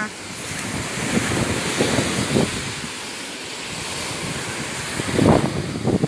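Steady rushing noise of wind and sea surf on the microphone.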